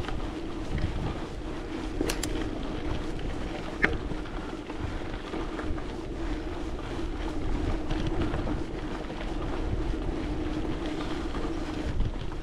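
Wind buffeting the microphone with a steady low drone underneath, and a couple of small sharp clicks about two and four seconds in.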